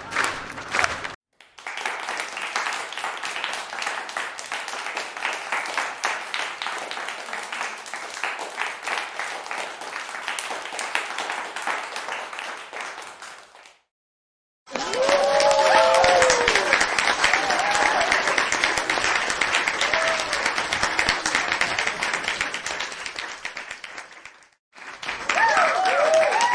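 Crowd applause played as a string of separate clips. The first clip cuts off about a second in. A long round of clapping then fades out after about 12 seconds. After a second of silence a louder round starts with cheering and whooping voices and fades away. Another round with cheers begins just before the end.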